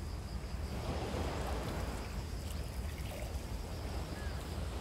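Steady outdoor noise of wind rumbling on the microphone over a wash of sea on a rocky shore.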